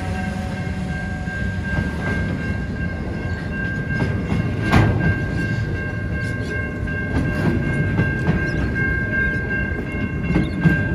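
Container wagons of a Pacific National freight train rolling past at a level crossing: a steady rumble with a few sharp clacks from the wheels, the loudest about five seconds in.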